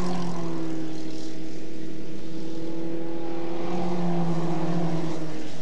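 Formula Ford 1600 race cars' engines running at racing speed, with a steady engine note that dips briefly near the end.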